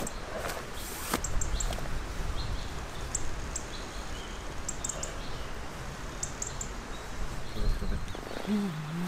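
Small birds chirping in woodland, short high calls scattered throughout, with a couple of sharp knocks about a second in, and a short low wavering voice-like sound near the end.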